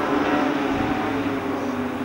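Ford Escort hill-climb race car's 16-valve engine running at high revs, growing fainter as the car moves away.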